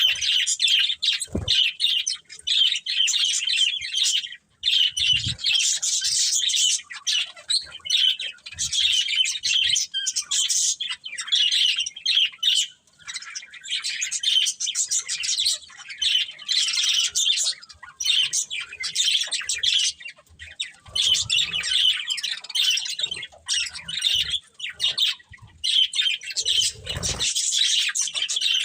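Budgerigars chattering and chirping non-stop in quick, high warbles and tweets, with a few brief low thumps.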